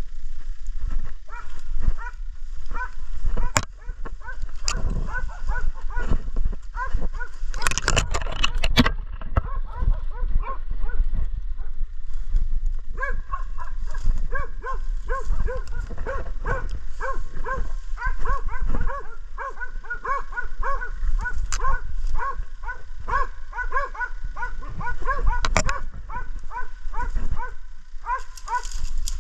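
Hunting dogs barking steadily and repeatedly, baying at a wild boar. The barks come faster from about halfway through, and there is a brief noisy crackle about eight seconds in.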